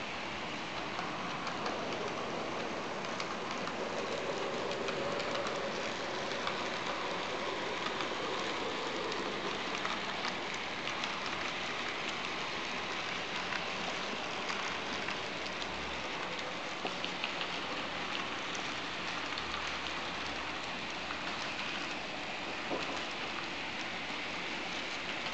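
N-scale model passenger train running on the layout: a steady rushing whir from the motor and from the wheels rolling on the track, with many faint, irregular clicks.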